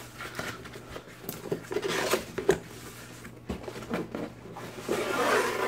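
Cardboard shipping box being opened by hand: its tear strip is ripped away and the box is shifted and turned, giving scattered knocks and rustles, with a longer tearing scrape about five seconds in.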